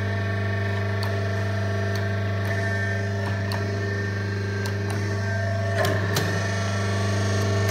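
Hydraulic power unit running: its electric motor and pump give a steady, loud hum with a low drone and several higher overtones. Light clicks are scattered through it, with a couple of sharper clicks about six seconds in.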